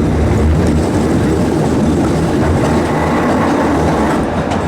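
Theme-park steam train carriages running along the track, a steady low rumble of wheels on rails with a few faint clacks.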